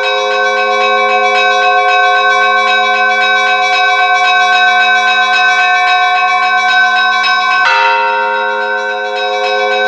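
Church bells ringing: quick, steady strikes of smaller bells over a bed of sustained ringing tones, with one heavy strike of a larger bell near the end.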